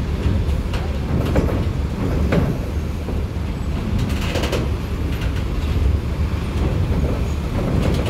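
Steady low rumble of large diesel bus engines moving at close range, with scattered knocks and clanks and a brief louder noisy burst about four seconds in.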